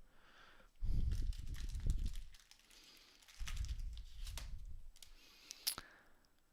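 Trading cards and their packaging handled on a table: two stretches of low rubbing and bumping, with a few sharp clicks in between.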